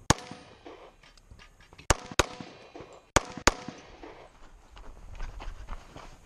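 Five semi-automatic pistol shots fired at close range: one at the start, a quick pair about two seconds in, then another quick pair about a second later, each a sharp crack with a short ringing tail.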